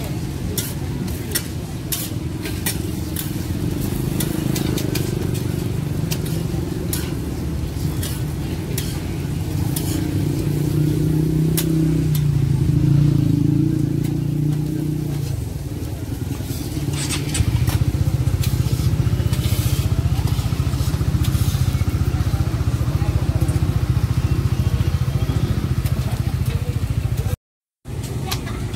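Busy street food market ambience: crowd voices over a steady low rumble, with food sizzling and frying at the stalls and scattered clicks and clatter. A louder steady rumble sets in about two-thirds of the way through, and the sound drops out for a moment near the end.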